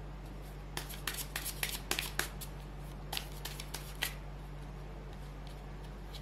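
Tarot cards shuffled by hand: a quick run of crisp flicking snaps in the first couple of seconds, then a few single snaps up to about four seconds in.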